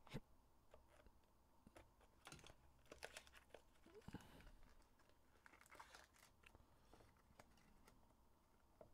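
Faint crinkling and tearing of plastic shrink-wrap being cut and peeled off a trading-card hobby box, with scattered small clicks and rustles from handling the box.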